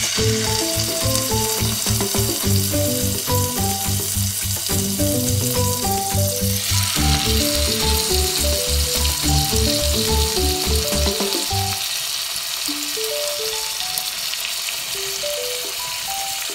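Beef steaks sizzling in a hot grill pan, the sizzle growing louder about halfway through. Background music plays throughout, a plucked melody over a pulsing bass that drops out about three-quarters of the way in.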